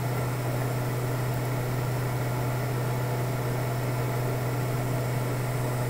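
Steady low hum with an even background hiss, unchanging throughout: the open microphone line of the call between sentences.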